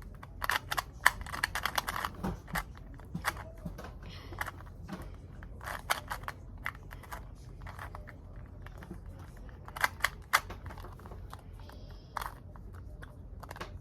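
Plastic 2x2 Rubik's cube being turned by hand during a solve: a rapid, irregular run of sharp clicks and rattles as the layers snap round.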